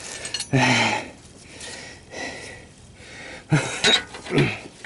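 Metal hand tools clinking, with short bright metallic rings, while a stuck oxygen sensor is being worked loose; short wordless grunts are mixed in.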